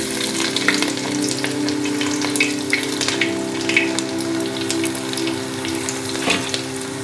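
Chopped ginger and garlic sizzling and crackling as they fry in hot coconut oil and ghee in a large aluminium pan, with a steady low hum underneath.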